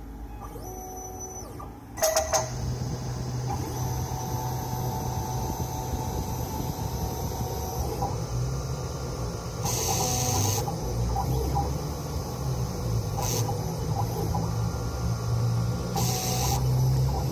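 CNC 3040 router milling a PCB with a 0.5 mm V-bit: the machine starts up with a few sharp clicks about two seconds in, then runs steadily with shifting motor tones as the axes move. Two short bursts of hiss come near the middle and near the end.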